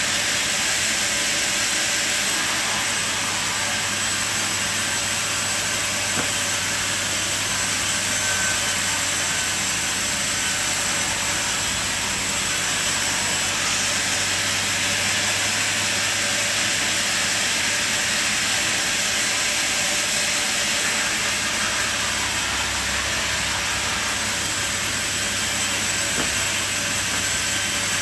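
Sawmill machine running steadily, a constant low hum under a high, even hiss with no breaks.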